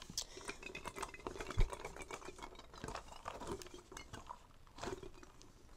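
Hands squeezing and stretching a stretchy squishy rubber toy close to the microphone: a run of small crackles and clicks, with a thump about one and a half seconds in.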